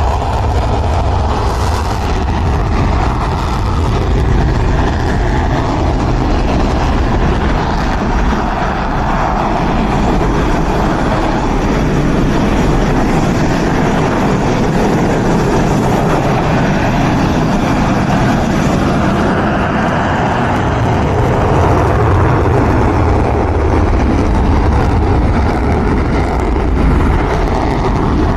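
Rafale fighter jets' twin turbofan engines running with a loud, steady roar and heavy low rumble.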